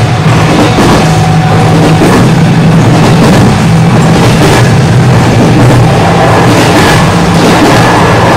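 JR West 207 series electric commuter train running, heard from inside a passenger car: a loud, steady hum of motors and wheels on the rails, with a few faint clicks from the track.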